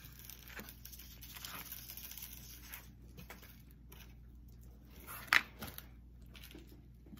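Faint rustling and scraping of hands handling a cheese stick and a plastic dipping-sauce cup over a cardboard pizza box, with one sharp click a little over five seconds in, then a bite into the cheese stick.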